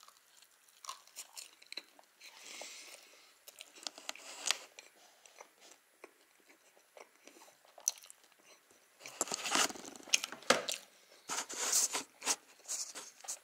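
Close-up chewing and biting of a baked egg-and-cheese casserole, with soft crunching mouth noises. From about nine seconds in, louder rustling and knocks come as the camera is handled at close range.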